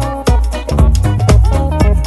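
Upbeat background dance music with a steady beat of heavy bass hits, about two a second.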